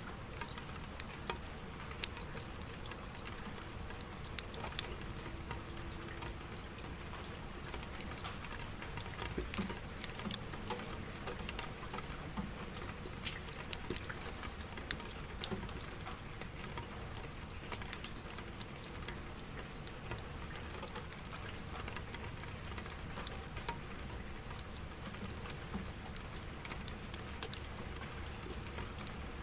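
Steady rain falling, with many scattered sharp taps of individual drops.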